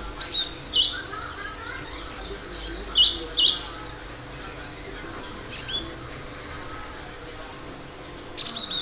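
Cinereous tit (gelatik batu) singing in short bursts of sharp, high chirping notes, four bursts a couple of seconds apart.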